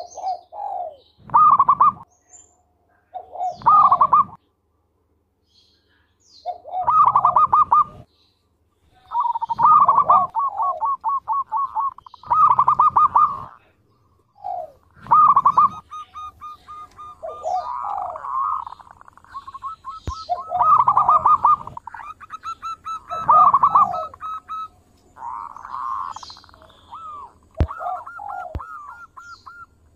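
Zebra dove (perkutut) singing its cooing song: repeated phrases of rapid, rolling coos, one phrase about every two to three seconds.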